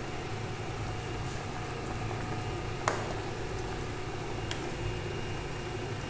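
Gas stove burner and a pot of chicken soup simmering on it make a steady low rumble. A sharp click comes about halfway through, and a fainter one a little later.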